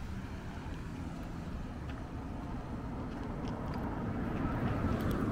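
Street traffic: a steady hum of passing cars, rising a little toward the end.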